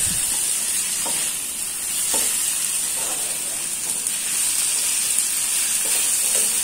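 Sliced onions, tomatoes and green chillies sizzling in a frying pan while a wooden spatula stirs them. The sizzle is a steady hiss, with a few short scrapes of the spatula through it.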